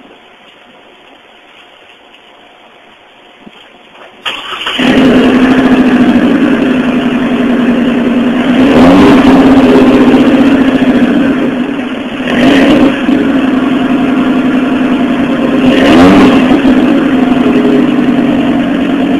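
Chevrolet Colorado pickup with an aftermarket cat-back exhaust started about four and a half seconds in. It settles into a loud, steady idle and is revved briefly three times.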